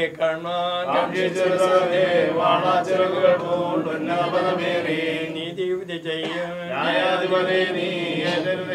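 Voices chanting a Malayalam Christian prayer hymn in a slow, unbroken line with long held notes.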